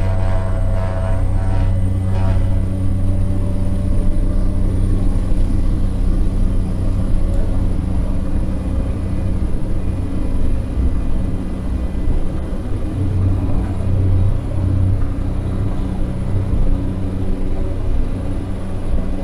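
Propeller airliner's engine at takeoff power during the takeoff roll, heard from inside the cockpit: a loud, steady drone with a thin high whine that rises slightly over the first several seconds, and runway rumble under it.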